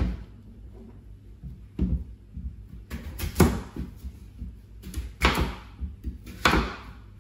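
Kitchen clatter: a series of sharp knocks and bangs, roughly a second or so apart, each with a short ringing tail. The loudest come in the second half.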